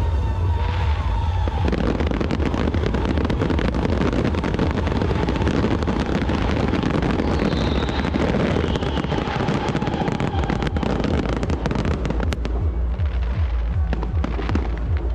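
Aerial fireworks display: a rapid, dense barrage of shells bursting and crackling with many overlapping bangs. The barrage thins to fewer, separate booms about twelve seconds in.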